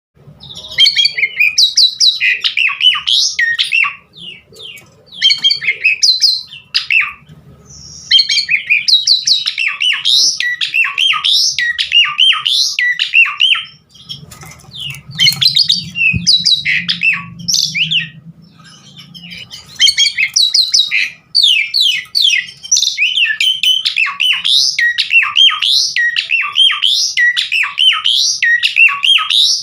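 Asian pied starling (jalak suren) singing in full voice: a long, fast run of varied whistles, chirps and harsh squawky notes, packed with mimicked phrases. The song comes in long bursts with a few short pauses.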